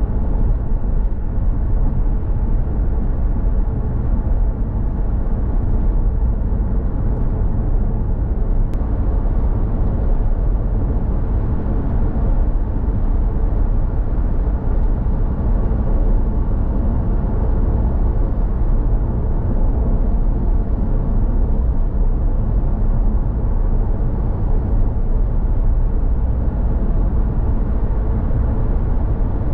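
Car driving at a steady speed, its engine and tyre noise a steady low rumble heard from inside the cabin.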